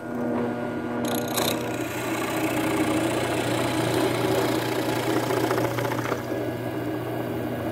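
Benchtop drill press running steadily, its bit boring through wooden knife-handle scales glued to the steel tang, throwing off wood chips.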